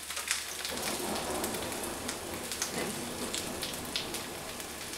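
Whole cornmeal-coated rabbitfish frying in a little oil in a pan, a steady crackling sizzle, with a few light clicks as metal tongs turn the fish.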